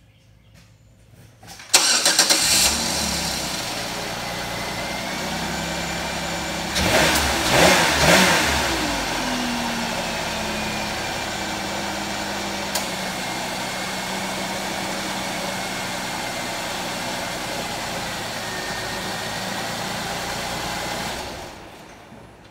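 Chevrolet Malibu Maxx engine starting with a sudden crank and catch, briefly revved up and down, then idling steadily before it falls away near the end.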